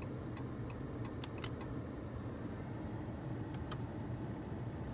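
Steady low hum inside a parked 2020 Jeep Cherokee's cabin, with a few light, irregular clicks.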